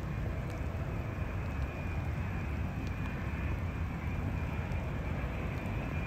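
Jet engines of a twin-engine wide-body airliner on final approach: a steady rumble with a faint high whine above it.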